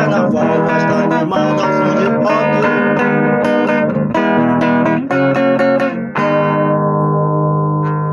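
Instrumental ending of a rock song, led by strummed guitar chords; about six seconds in the band stops on a final chord that is left to ring out.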